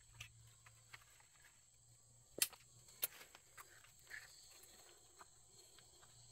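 Near silence broken by a few scattered faint clicks and knocks, two sharper ones about two and a half and three seconds in.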